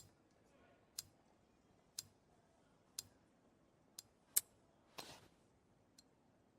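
Faint clock ticking, one tick a second, with one sharper click a little after four seconds in and a short brushing sound about five seconds in.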